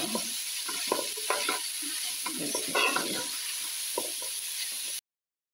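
A metal spatula stirring and scraping chicken mince and chopped green onions around an aluminium pan, in short irregular strokes over a steady frying sizzle. The sound cuts off abruptly about five seconds in.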